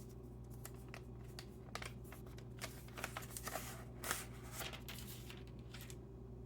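Hands handling a smartphone and its packaging: scattered light clicks and short bursts of rustling, busiest in the middle, over a steady low hum.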